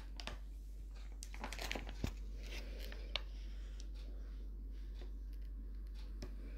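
Faint rustling and light clicks of handling, with a sharper click about two seconds in, then quieter room tone over a low steady hum.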